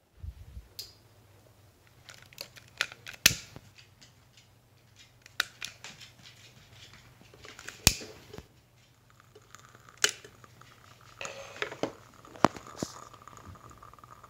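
Fireplace fire crackling: irregular sharp pops and snaps, some loud, over a low steady hum. A faint steady tone joins about nine seconds in.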